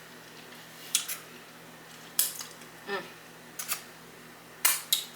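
Close-miked eating sounds: a handful of separate short crunches and mouth sounds from biting and chewing crispy fried hot honey chicken wings.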